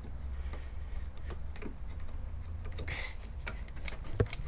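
Small clicks and taps of a screwdriver prying at a plastic reservoir's fitting under a car bonnet, coming more often in the last second and a half. A steady low hum runs underneath.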